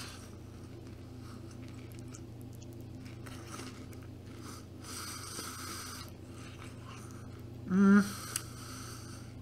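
A mouthful of cereal and milk being chewed with the mouth closed, faint and soft. About eight seconds in comes a short hummed "mm", the loudest sound.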